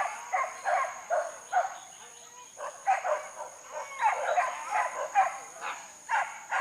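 Hunting dogs yelping and barking in quick, irregular bursts of high cries, the sound of the pack chasing a wild boar.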